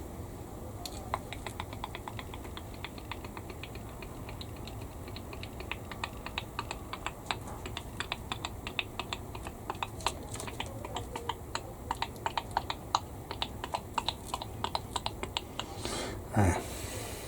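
Rapid, irregular light clicks and taps, several a second, like small hard plastic model-kit parts being handled and sorted. One louder bump comes near the end.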